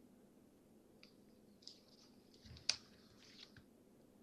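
Near silence with a few faint rustles and light clicks, the sharpest a single click about two and a half seconds in: an iPad being handled and tapped, heard over a Skype call.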